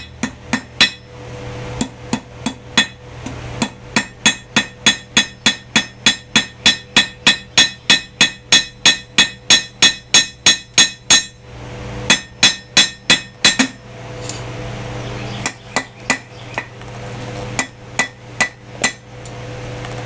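Hand hammer striking hot steel on an anvil, beveling the corners of a small forged hammer-head pendant made from rebar. Runs of quick, ringing blows, about three a second, come in groups broken by short pauses, and a steady low hum is heard between the runs.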